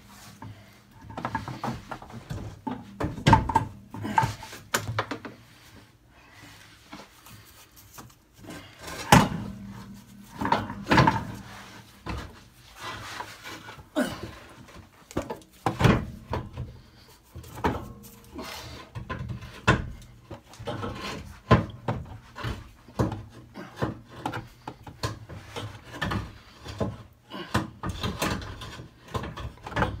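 Irregular knocks, clunks and scraping of metal as a Citroen C1 gearbox is manhandled up into place under the car during refitting after a clutch change, with a few sharp louder strikes.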